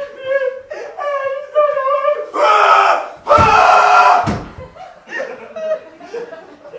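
A person's high-pitched wailing voice, breaking into two loud screams in the middle.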